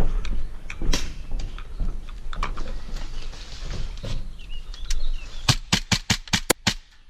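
Scattered footsteps and knocks of a player on the move, then a rapid string of about ten sharp airsoft gun shots near the end, roughly eight a second, with one more shot just after.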